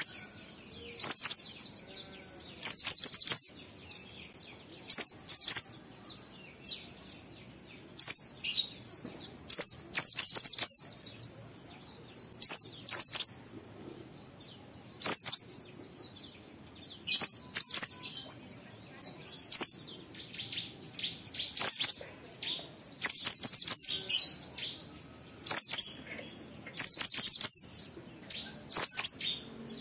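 White-eye (pleci) singing its 'ngalas' song: short bursts of several quick, very high-pitched sweeping chirps, repeated about every two seconds with brief pauses between.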